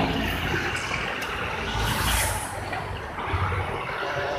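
Steady engine and road noise of a moving open-sided passenger vehicle, heard from inside it.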